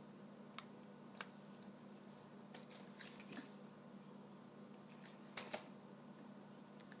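Near silence with a faint steady hum, broken by a few light clicks and taps from hands handling paper craft pieces.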